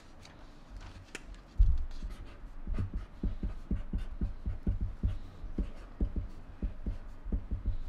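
Marker pens drawing on paper on a tabletop near the microphones: a sudden low thump about one and a half seconds in, then a run of irregular low taps and strokes, a few a second.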